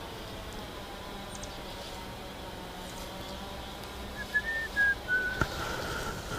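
A few short, high whistled notes in a row, stepping between slightly different pitches, starting about two-thirds of the way in.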